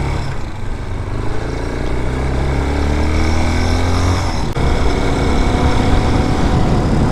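Vitacci Raven 250cc air-cooled dirt bike engine being ridden, its pitch rising steadily as it accelerates. About four and a half seconds in there is a brief break, and then it runs on more steadily.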